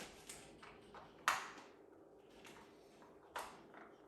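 Hard plastic clicks and clacks from an Outward Hound Dog Brick puzzle toy as treats are loaded into its compartments. There are a few light ticks and two sharper clacks, one just over a second in and one past the three-second mark.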